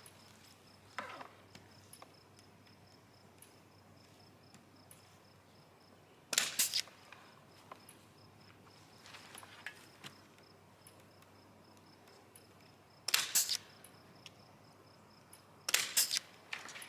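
Compressor-fed pneumatic staple gun firing three times, about six, thirteen and sixteen seconds in, each shot a brief cluster of sharp cracks.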